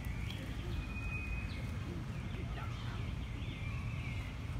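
High chirping animal calls, a short steady whistle about a second in and then a run of quick rising and falling chirps, over a low steady rumble.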